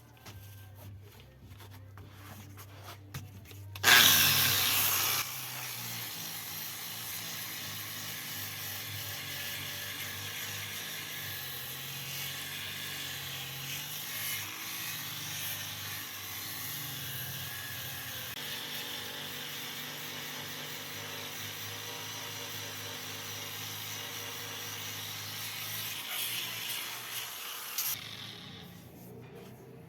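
Angle grinder fitted with a polishing pad, working a stone surface. It starts loud about four seconds in, runs steadily and stops near the end.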